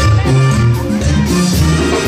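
Sinaloan banda music playing, with a bass line moving in a steady rhythm under the ensemble.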